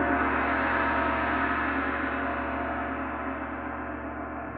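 Quiz-show round sting: a gong-like chord of many steady tones, struck just before, ringing on and slowly fading.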